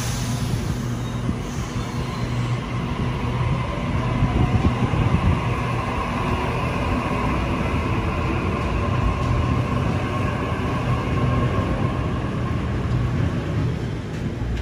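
Sydney Trains Waratah A-set double-deck electric train moving past the platform as it pulls away: a steady rumble of wheels on rail, with a low hum and a faint whine through the middle.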